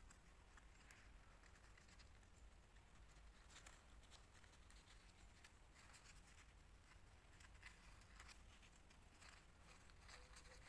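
Faint crinkling and rustling of folded origami paper being handled, in scattered soft ticks over near silence.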